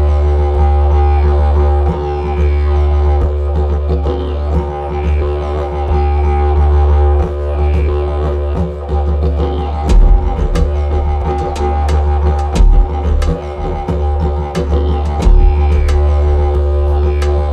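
Background music: a deep, steady drone with held tones over it, joined by sharp percussion hits about ten seconds in.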